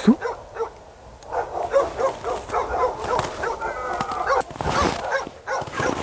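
Several dogs barking over and over, short yaps that overlap and repeat.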